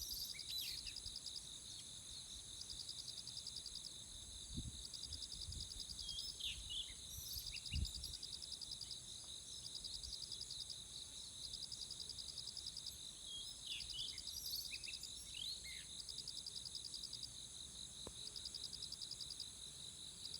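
Insects trilling steadily, with pulsed chirping phrases repeating every couple of seconds, while birds give short scattered chirps, most around seven seconds in and again near fourteen to sixteen seconds. Two low thumps, about five and eight seconds in.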